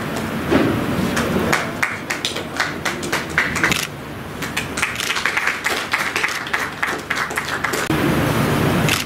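Small audience applauding: many quick, irregular hand claps, thickest through the middle and thinning near the end.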